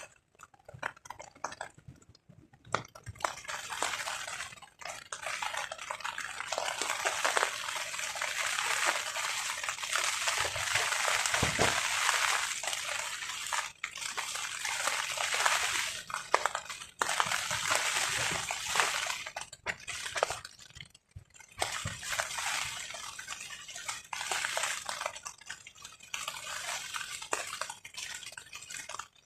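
Rain falling on a tarp overhead, coming in heavier and lighter spells, with a few brief breaks.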